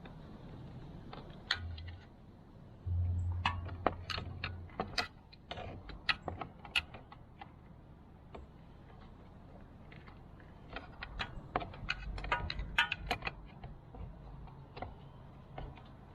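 Metal hand tools clicking and clinking against metal in irregular sharp clicks, some in quick clusters, while a stuck part is being worked loose on the motorcycle.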